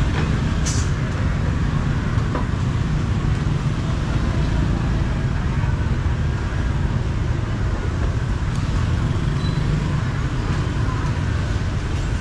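Busy street ambience: a steady low traffic rumble with voices in the background.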